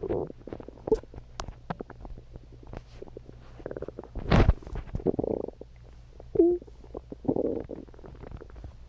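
A human stomach growling and gurgling in irregular rumbles, pops and bubbling. The loudest burst comes about halfway through, followed by a short squeaky pitched gurgle and another rumble near the end.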